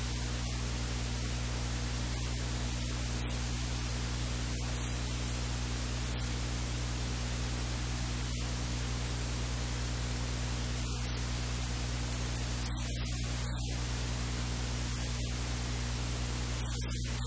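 Steady electrical static hiss with a strong mains hum underneath. No other sound stands out.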